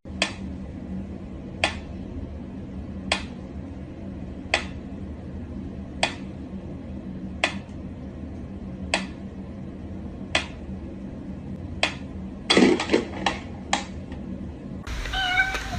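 A sharp click or tap repeating evenly about every second and a half over a steady low hum, then a quick flurry of several louder taps near the end.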